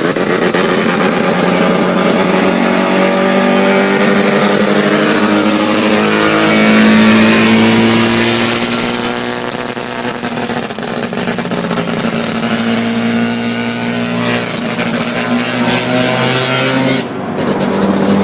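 Rotary engine running loud at high revs, its pitch stepping and sliding up and down several times. It is loudest about seven seconds in, with a brief sharp dip near the end.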